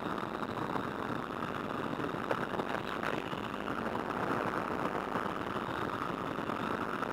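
De Havilland Tiger Moth's Gipsy Major four-cylinder engine running steadily in flight, mixed with slipstream noise, heard from the pilot's flying helmet.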